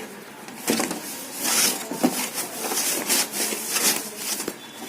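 A washing machine's back cover being cleaned: irregular rubbing and scraping strokes with light clicks and knocks as it is handled.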